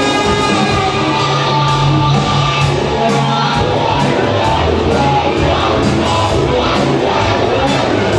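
Rock band playing live: electric guitars, bass and keyboards over a steady drum beat.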